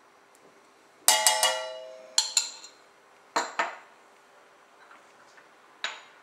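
Metal spoon clinking against a stainless steel cup while Dijon mustard is knocked off it, each strike ringing briefly: three quick clinks about a second in, two pairs over the next two and a half seconds, and a single clink near the end.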